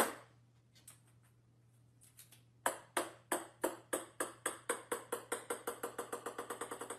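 Ping-pong ball bouncing on a wooden floor, starting about two and a half seconds in, the bounces coming faster and quieter as it settles. A single sharp click at the very start and a few faint taps come before it.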